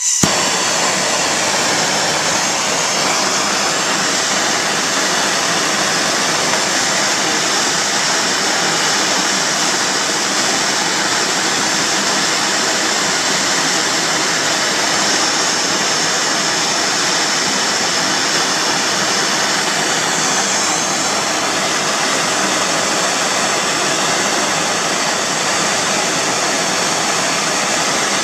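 Gas brazing torch flame hissing steadily, starting abruptly, while it heats a brass saxophone mouthpiece for silver soldering.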